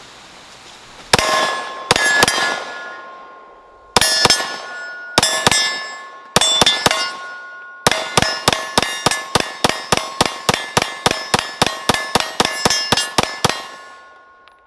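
Glock P80 9mm pistol firing about thirty shots, each followed by the ringing clang of a hit steel target. First come spaced single shots and pairs, then a fast steady string of about three shots a second that stops about a second before the end. The pistol runs through a 31-round ETS magazine without a stoppage.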